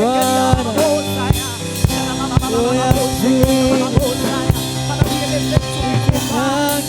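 Worship band music: a drum kit keeping a steady beat, about two strikes a second, under sustained keyboard chords and a wavering sung melody.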